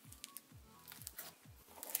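Quiet background electronic music with a steady kick-drum beat about twice a second, over faint crackling of thick, icy cloud slime being stretched and pulled out of its plastic jar.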